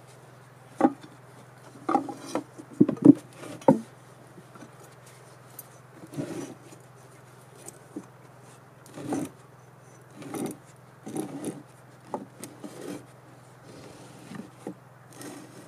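Irregular wooden knocks and clunks with some rubbing as hollow wooden plant holders are handled against wood, heaviest in the first few seconds, over a steady low hum.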